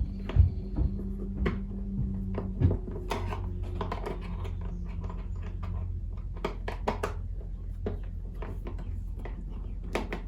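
Screws and hand tools clicking and tapping against the motorcycle's airbox and panels as the screws are put back in: a string of irregular sharp taps, the loudest about half a second in, over a steady low hum.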